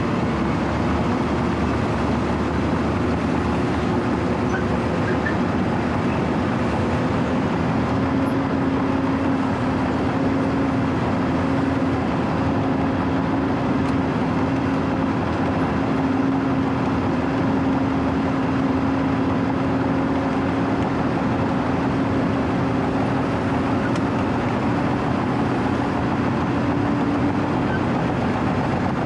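Wirtgen W 120 CFi cold milling machine's diesel engine running steadily as the machine travels, with a steady hum that holds for most of the stretch.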